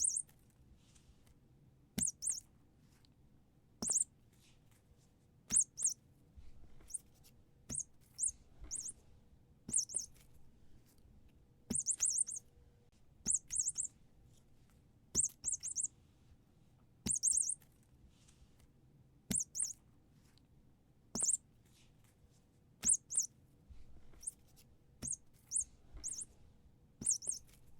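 Squeaky toy being squeezed again and again: short high-pitched squeaks every second or two, some single and some in quick pairs or threes, each starting with a light click.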